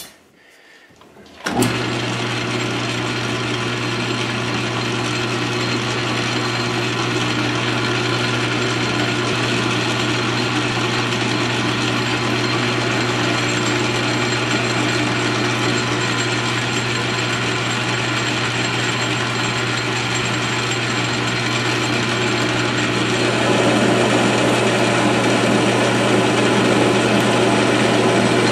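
South Bend 13-inch metal lathe starting up about a second and a half in and running steadily with a constant motor hum while taking a turning cut on a shaft. The sound grows louder about 23 seconds in.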